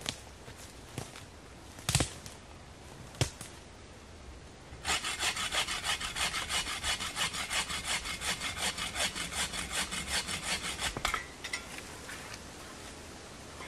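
Bow saw cutting through a thin birch pole: quick, even back-and-forth strokes for about six seconds that stop abruptly when the cut is through. Before the sawing starts, two sharp cracks of dry twigs snapping underfoot.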